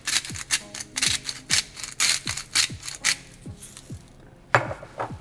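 Background music with a steady beat of deep kick drums dropping in pitch, about two a second, and crisp percussion on top.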